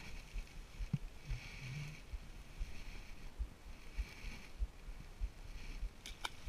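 Clothing fabric rubbing and brushing against a body-worn camera, with irregular low bumps from handling and a sharp click about six seconds in.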